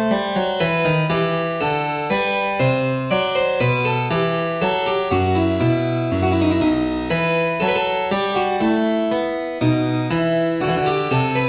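Harpsichord music: a steady stream of quick plucked notes over a moving bass line, with one longer low bass note held for about two seconds near the middle.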